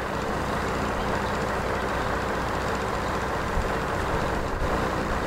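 Truck engine of a crane lorry idling steadily.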